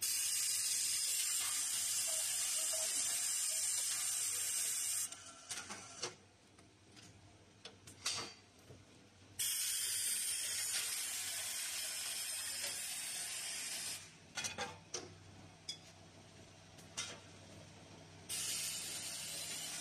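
Automatic bagging machine running, clicking and clacking, with a steady high hiss that comes and goes in three long stretches and starts and stops abruptly.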